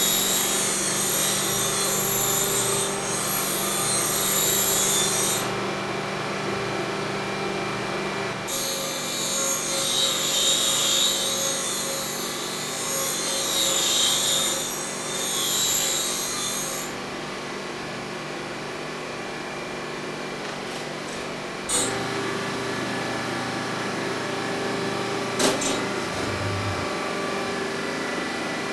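Work train rolling slowly on the track: a steady engine hum under two long stretches of high hissing, scraping noise. About three-quarters of the way in the sound changes to a steadier hum, with one sharp click near the end.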